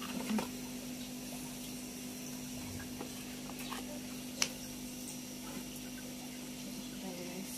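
Steady low background hum with a few light clicks, the sharpest one about four and a half seconds in.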